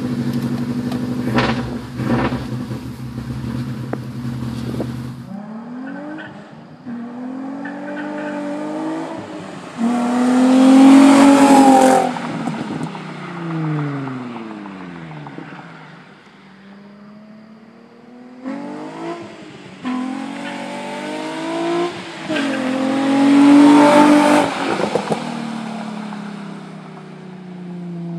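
For the first few seconds, a Subaru Impreza GT's turbocharged flat-four runs steadily, heard from inside the cabin. Then a Nissan 350z's 3.5-litre V6, through an ARK Grip exhaust with Berk test pipes, accelerates hard twice, its pitch climbing through several upshifts to a loud peak and then falling away as the car passes and drives off.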